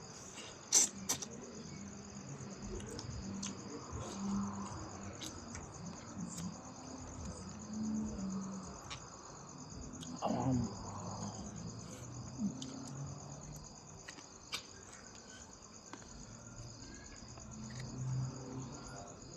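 Insects chirping in a steady, evenly pulsing high trill, with a sharp click about a second in and a few scattered knocks and short low sounds.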